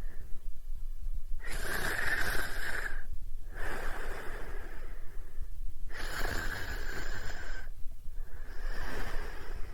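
Snoring: slow, noisy breaths in and out, about four of them, each a second and a half to two seconds long with short pauses between.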